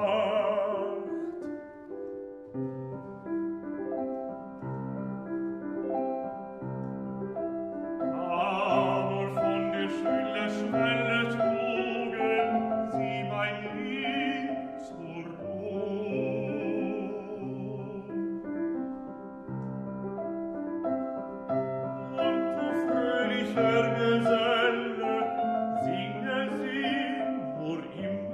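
Baritone singing a classical art song with piano accompaniment. The piano keeps up a steady, regularly repeating figure with a recurring bass note. The voice drops out for a short piano-only passage and comes back in with vibrato about eight seconds in.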